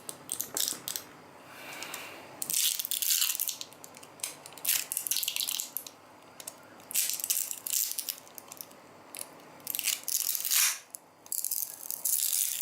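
Glued-in battery of an Oppo F1s phone being pried and pulled out of its frame without heating the adhesive: harsh crackling and scraping in irregular bursts as the adhesive tears and the battery flexes, really unpleasant to hear.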